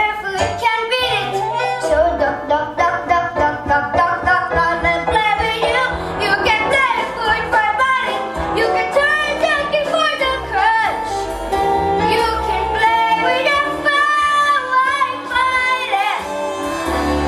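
Stage musical number: voices singing a show tune with instrumental accompaniment.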